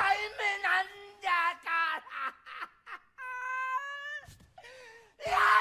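A man wailing and sobbing in high, wavering cries that break off and start again, with one longer held cry a little past halfway.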